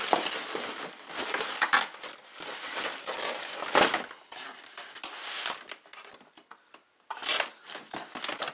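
Cardboard packaging inserts rustling, scraping and crinkling as hands shift and pull them inside a cardboard box, in irregular bursts with a short lull about six seconds in.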